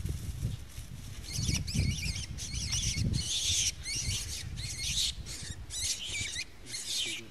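A rabbit caught by a lurcher squealing, a rapid series of high-pitched distress cries with short breaks that begins about a second in. Low thumps of movement sound under it in the first few seconds.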